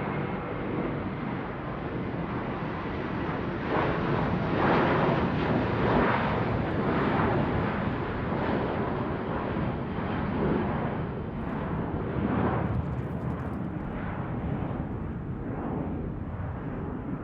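Airplane flying overhead: a broad rumbling roar that swells about four seconds in and then slowly eases off.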